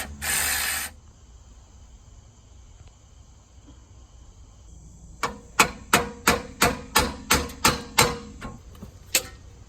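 A short loud hiss that cuts off just under a second in, then about a dozen sharp hammer blows on metal at roughly three a second, followed by one more blow near the end: hammering at a badly rusted nut on a Jeep's neutral safety switch to break it free.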